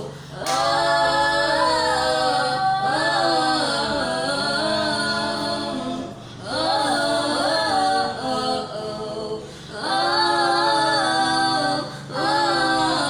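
Unaccompanied a cappella singing by several voices, women's voices prominent, in long sustained phrases separated by short breaths, over a steady low hum.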